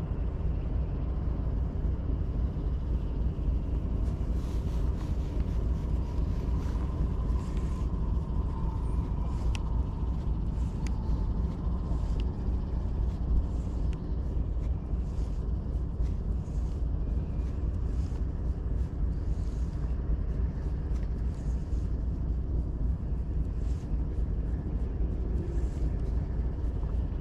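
Steady low wind rumble on the microphone, with a few faint clicks.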